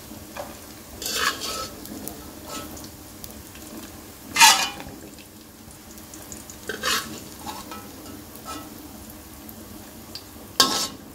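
A metal spoon scraping and clinking against an aluminium karahi while fried chopped dried dates are scooped out of ghee. A faint sizzle runs underneath, and the loudest clink comes about four and a half seconds in.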